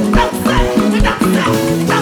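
Upbeat African-style praise music from a band: a moving bass line over a steady drum beat.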